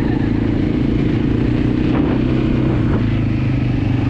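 Kymco MXU quad bike's engine running steadily under way as it is ridden across the sand, heard on board close to the machine.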